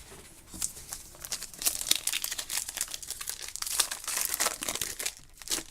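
Wrapper of a trading card pack crinkling and tearing as it is handled and pulled open, a dense run of sharp crackles from about half a second in until near the end.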